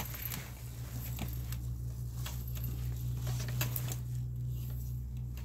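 Manual wheelchair being pushed forward by hand on its push rims over uneven ground: scattered small clicks and crackles over a steady low hum.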